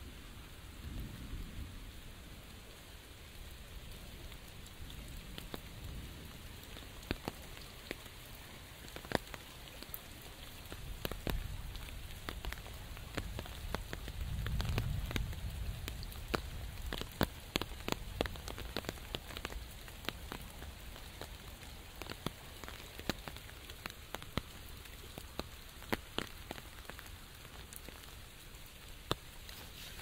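Steady rain, with large drops tapping sharply and irregularly on an umbrella overhead; a low rumble swells about halfway through.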